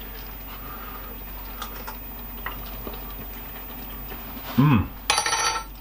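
Faint spoon ticks over a steady low background, then, about three-quarters of the way through, a man's appreciative "mmm" as he tastes hot food, rising then falling in pitch, followed by a short noisy burst.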